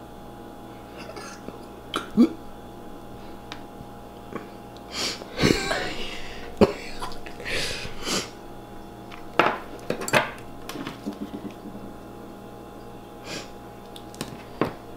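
Metal butter knife scraping and tapping against Oreo cookie halves as the filling is worked off and spread. Scattered short scrapes and clicks, the sharpest about two seconds in and again midway.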